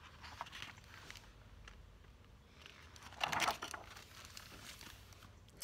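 A picture book's page being turned by hand: a short paper swish about three seconds in, with faint paper handling sounds around it.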